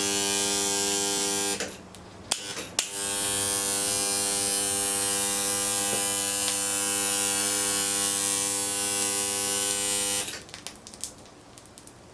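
Bare TECO rotary compressor motor stator, rotor out, energised on mains and buzzing with a loud, steady electrical hum as an electromagnet. The hum cuts off about a second and a half in, a few clicks follow, it comes back about a second later, and it stops again near the end.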